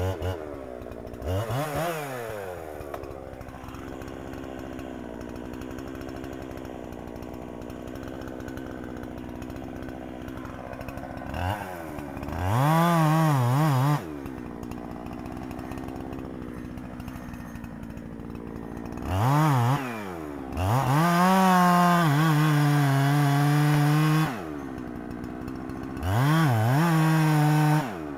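Two-stroke chainsaw idling, then opened up to full throttle five times as it cuts into a dead oak trunk. Each time the pitch climbs, holds and drops back to idle. The longest run at full speed lasts about four seconds, a little past halfway, and the last comes near the end.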